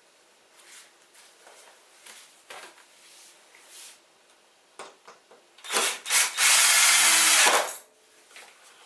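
Power drill driving a screw into wood: a short burst, then a steady run of about two seconds. Before it, light handling of the wood with a few clicks.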